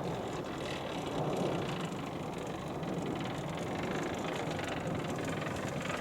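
Gas snow blower engine running steadily.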